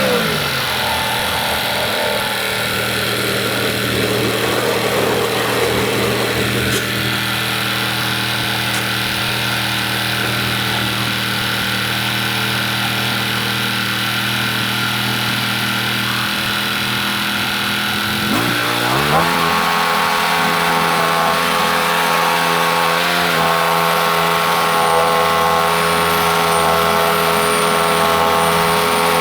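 Gas engine of a Norwood MX34 portable bandsaw mill. It is throttled down at the start and runs steadily at low speed, then is revved back up about two-thirds of the way through and holds a higher steady speed.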